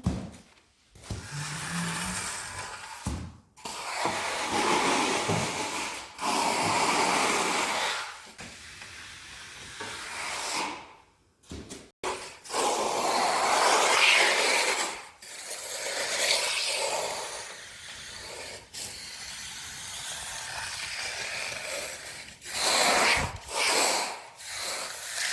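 Steel plastering trowel scraping and rubbing across a cement mortar screed floor that has partly set, in a series of long swishing strokes with short pauses between them. This is the finishing pass that smooths the floor.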